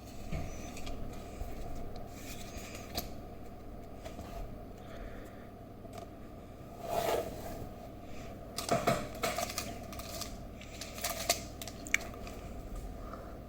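Pokémon trading cards and booster packs being handled: scattered soft clicks and brief rustles over a low steady hum, with a sharp click near the end.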